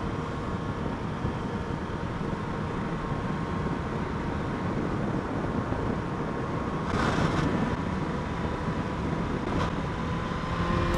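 Motorcycle at speed through a bend, heard from a helmet camera: steady wind rush over the engine. A brief scrape comes near the end as the footpeg touches the road at full lean.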